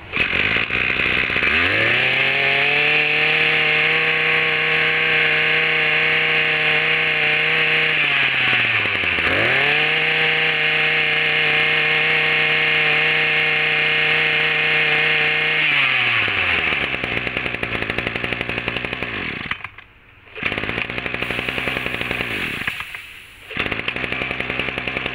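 Small 26 cc two-stroke engine of a Ryobi brush cutter running. It is throttled up to high revs and held there, drops briefly and revs up again, then is let down to a lower idle about two-thirds of the way in. Near the end the sound falls away twice and picks up again.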